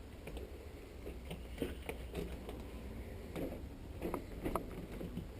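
Footsteps on old wooden floorboards, with irregular creaks and knocks as the boards flex underfoot.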